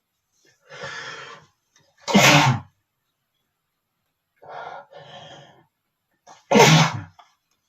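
A man sneezing twice, each sneeze preceded by a breathy intake of breath: the first sneeze about two seconds in, the second near the end.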